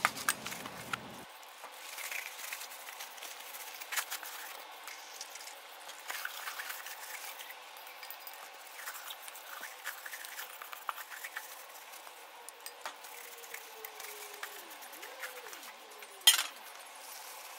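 Metal spray-gun paint cup being wiped out with a thinner-soaked paper towel: light rubbing and paper rustling with small metallic clinks and taps, and one sharper knock near the end.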